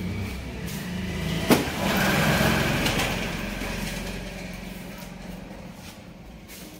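An engine running, growing louder about two seconds in and then slowly fading, with a sharp click just before the swell.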